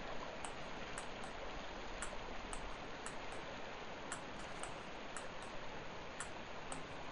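Steady rushing of a river flowing over shallow riffles, with faint light ticks about twice a second.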